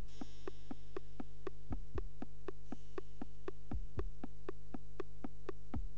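Electronic intro music: a steady ticking beat of about four ticks a second over a sustained synthesizer drone, with a pair of low thumps about every two seconds.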